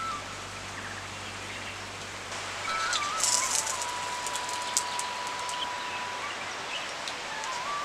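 Hot oil sizzling as a poori deep-fries in a cast-iron kadai, fainter at first and turning busier and crackly a couple of seconds in, with a few light clicks of metal tongs. A slow melody of sustained notes from background music plays underneath.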